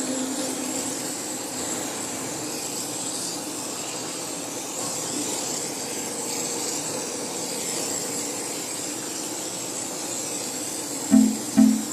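Steady hissing run of a car-cleaning machine, with a thin high whine over a rushing noise.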